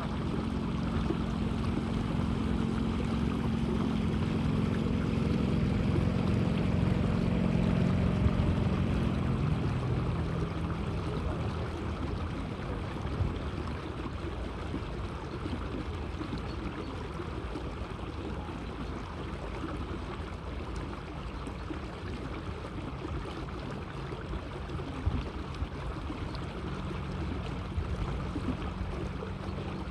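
Water splashing and lapping against the hull of a small electric boat cruising slowly, with wind. A low droning hum swells over the first ten seconds and fades, then returns faintly near the end.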